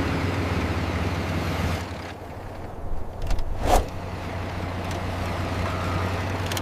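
Heavy construction-vehicle engine running steadily at a low, even hum, with a few knocks and one louder clunk a little past halfway.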